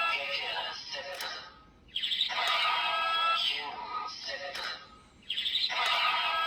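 Kamen Rider Geats Laser Raise Riser toy, fitted with a repair kit, playing electronic sound effects through its small speaker: a chirpy synthetic jingle with bright beeping tones that starts again about every three seconds.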